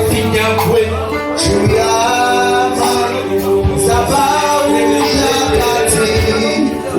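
Worship music: a man singing a held, flowing melody over sustained instrumental backing.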